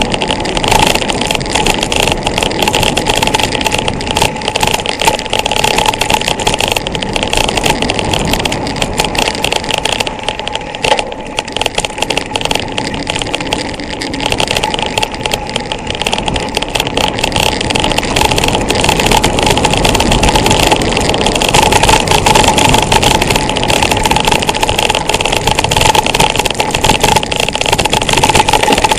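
Wind rushing over the bike-mounted camera's microphone, mixed with the rattle and tyre rumble of a mountain bike rolling fast over a bumpy dirt trail, with many small knocks from the bumps.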